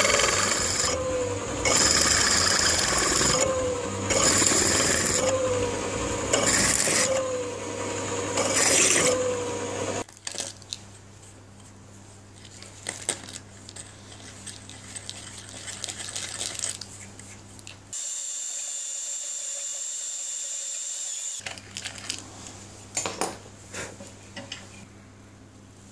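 A power drill's twist bit boring into a copper plate in about five repeated bursts, each carrying a faint pitched tone. About ten seconds in it gives way to quieter scrapes and clicks of the plate being handled, with a steady hiss for a few seconds later on.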